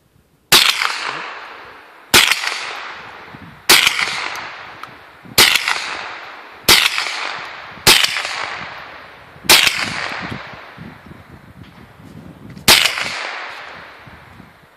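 Eight single shots from a Ruger SR-22 .22 LR semi-automatic rifle, fired one to two seconds apart with a longer pause before the last. Each crack trails off in a long echo.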